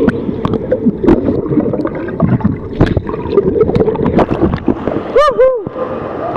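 Water rushing and splashing right against the phone's microphone, with many sharp knocks and clatters. About five seconds in come two short, high cries that rise and fall.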